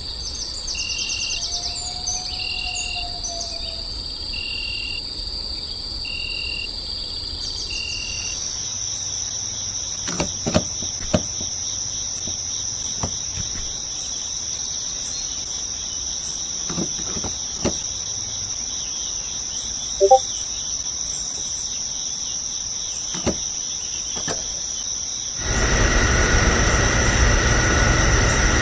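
Insects, like crickets, keep up a steady high chirring, with a few scattered clicks. For the first several seconds a short chirp repeats about once a second. About 25 seconds in, a louder low rumble with a steady whine sets in.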